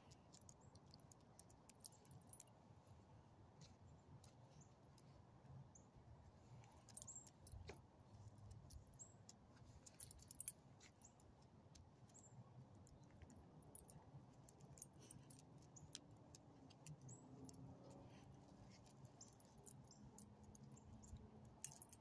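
Near silence: faint outdoor background hum with scattered light clicks and ticks.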